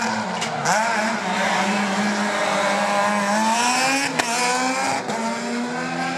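Rally car engine revving hard, its pitch climbing and dropping with gear changes, with a sharp crack about four seconds in.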